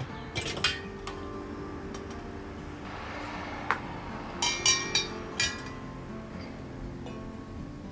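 Soft background music with a few light clinks of cookware and utensils, a handful of sharp ringing taps about half a second in and again in the middle.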